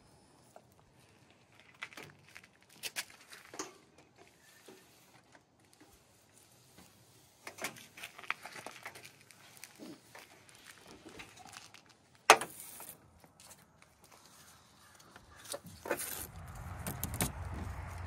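Scattered small clicks and rustles of hands handling and fitting an LED light strip and its wiring at a truck's metal mesh grille, with one sharp loud click about twelve seconds in. A steady low noise comes up near the end.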